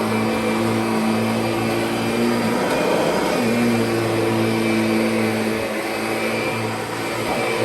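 Kirby Sentria upright vacuum cleaner running on carpet: a steady motor hum with a rushing of air. About three seconds in, the motor note briefly drops out and returns, as the machine's load changes on the carpet.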